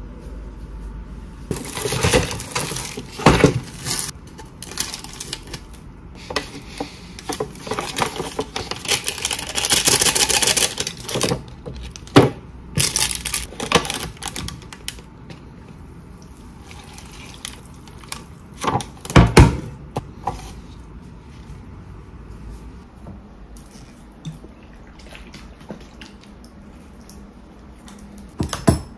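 Kitchen handling sounds: a plate and utensils knocking and clattering, a paper-and-foil cup noodle lid crinkling as it is peeled back, and a few seconds of steady rustling noise in the middle. The loudest clatters come a little past halfway, with a single sharp knock near the end.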